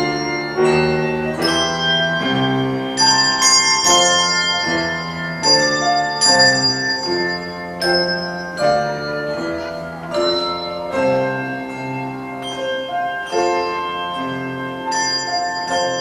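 Handbell choir ringing a sequence of chords, each bell note sounding on between strikes, with piano accompaniment.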